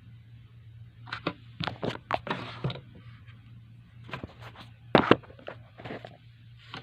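Plastic prize-figure parts and packaging being handled: a run of small clicks and rustles, then a second cluster with two sharp clacks about five seconds in, over a steady low hum.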